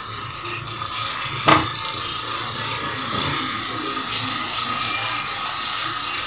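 Silicone spatula stirring and scraping chicken and potato curry as it fries in a pan, with one sharp knock about one and a half seconds in.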